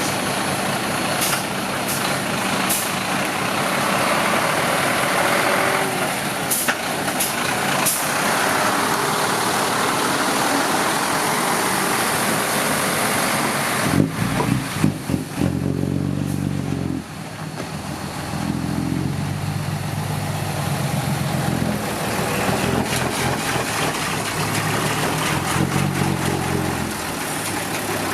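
Heavy road-construction trucks and machines running, their engines a dense, noisy drone with a few short high hisses in the first several seconds. About halfway through the sound changes to a deeper pitched engine hum that surges louder a few times.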